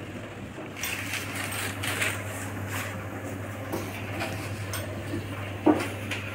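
Dry rustling and crinkling as paper-thin flatbreads (mande) and newspaper are handled and folded, with a few light knocks and one sharper knock near the end. A steady low hum runs underneath.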